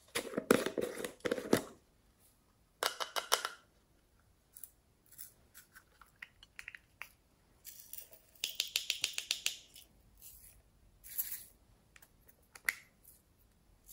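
Small plastic containers of sequin glitter being shaken and tapped out, the sequins and plastic rattling in short bursts of quick clicks. The longest bursts come over the first second and a half and again a little after halfway.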